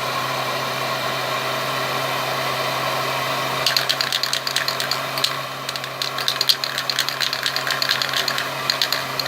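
Electric heat gun running steadily, a motor hum with a blower hiss, warming an aerosol paint can. About a third of the way in, a rapid irregular rattling clatter starts over it and carries on.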